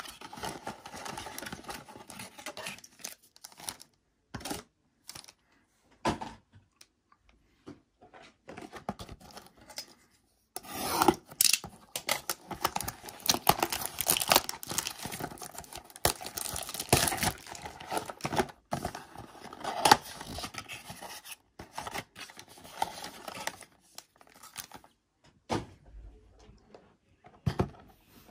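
Cardboard blaster box of trading cards being opened, its flaps rubbing and tearing, with scattered taps. From about ten seconds in, a long spell of cellophane wrapping crinkling and tearing as it is pulled off the stack of card packs.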